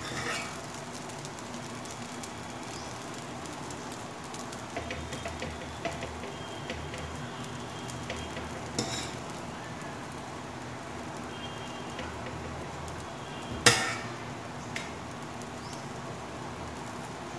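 Dosa sizzling steadily on a hot iron tawa while a steel spoon spreads minced mutton over it, with scattered scrapes and taps of the spoon and one sharp clink of metal on metal about two-thirds of the way through.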